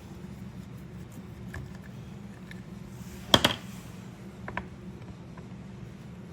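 A few light clicks and taps of small parts being handled on a workbench, the loudest a quick double click about three and a half seconds in, over a steady low hum.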